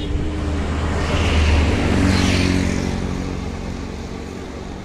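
A motor vehicle passing close by: engine and tyre noise swell to a peak about two seconds in, the engine's pitch drops as it goes past, then the noise fades.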